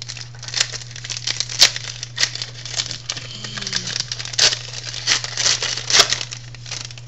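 Crinkling and tearing of a trading-card pack wrapper being opened and handled, in irregular sharp crackles.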